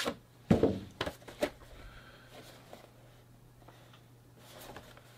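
A few short knocks and rustles from a Funko Pop box being handled and turned over, the loudest about half a second in, then quiet room tone with a steady low hum.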